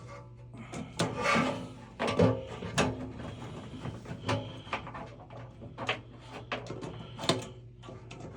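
Hands working on a gas water heater: irregular knocks, clicks and scrapes as parts are handled, over a faint steady low hum.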